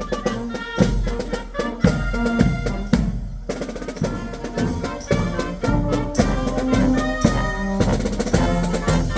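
Brass band with drums playing: frequent drum strokes under held brass notes.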